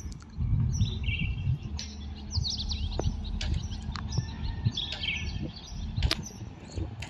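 Small birds chirping in short, quickly repeated phrases over a steady low rumble.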